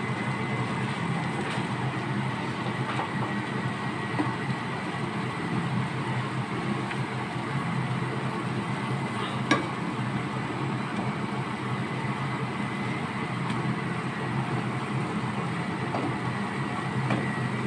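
Rice noodles, carrots and meat sizzling in a frying pan while being stirred and tossed with a wooden spatula: a steady hiss with an occasional light knock of the spatula, over a low steady hum.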